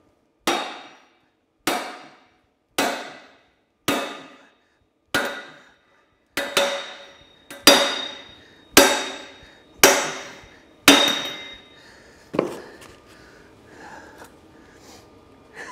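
Sledgehammer blows on an Allis-Chalmers D17 rear axle and final-drive assembly, about eleven strikes roughly a second apart, each with a short metallic ring. They knock the rear axle loose for removal. The blows come hardest toward the middle, then stop about three-quarters of the way through, leaving only faint handling sounds.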